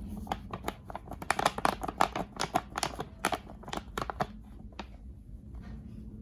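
Packaging being handled and opened by hand: a quick run of crackles and clicks for about four seconds, then a few fainter ones.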